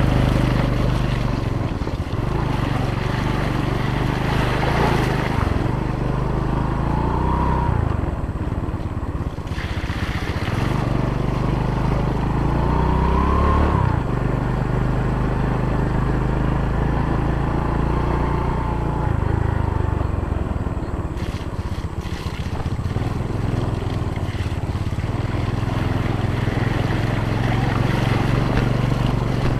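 Yamaha scooter engine running under way on a rough dirt track, its note rising and falling several times as the throttle is opened and eased.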